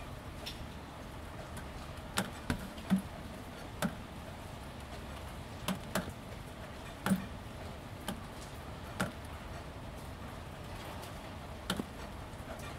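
Gentle, steady rain on corrugated roofing sheets: a soft background hiss with heavier drops landing as sharp, irregular taps, about one a second.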